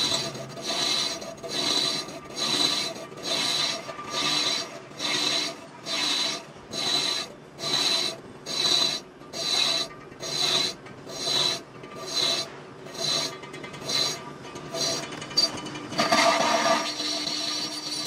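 Rhythmic rasping strokes of a hand file or saw working a cast part, about one and a half strokes a second. The strokes stop about 16 seconds in, when a steadier, louder rasping noise takes over.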